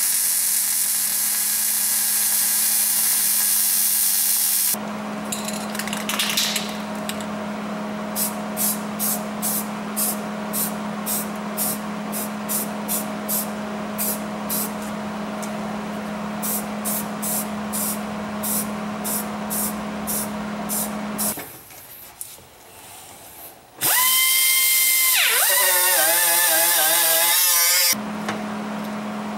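MIG welder arc crackling loudly on the car's rear floor sheet metal for about five seconds at the start. Then a steady low hum carries a run of short sharp rattles, about two a second, and near the end comes a second loud stretch of hissing.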